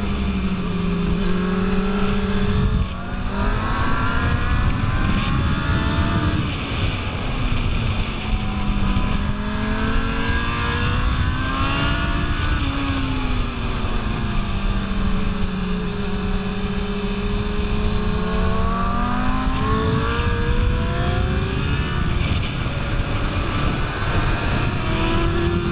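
600cc inline-four sport bike engine heard from on the bike, its pitch climbing and falling again and again as the rider rolls on and off the throttle through a run of corners, with a brief drop about three seconds in. Steady wind rush runs underneath.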